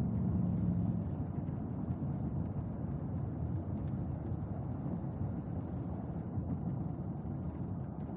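Cabin sound of a 2001 Rolls-Royce Corniche V on the move: its 6.75-litre turbocharged V8 hums steadily, then eases about a second in, leaving mainly a low rumble of tyres and road.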